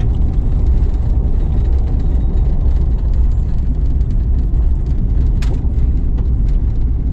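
Steady low rumble of engine and road noise inside a moving car's cabin, with a single sharp click about five and a half seconds in.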